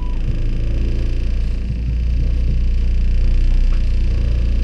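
Boat's outboard motor running, a steady low rumble.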